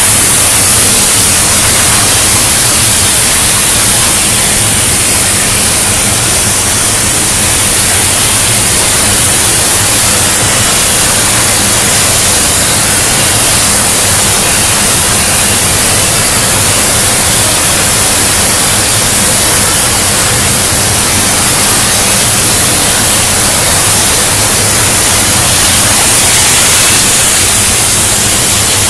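CNC profile cutting machine's torch cutting steel plate, a loud steady hiss with a faint low hum beneath.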